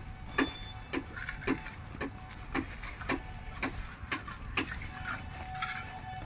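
A series of sharp knocks repeating evenly, about two a second.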